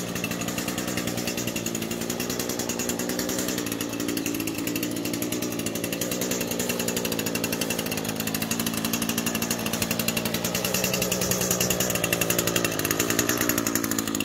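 Small gasoline engine of a lawn tool running steadily at a constant speed, without load.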